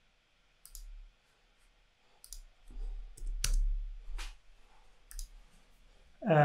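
A handful of irregular clicks and taps from computer controls as a number is entered into a trading order form, the sharpest one about three and a half seconds in.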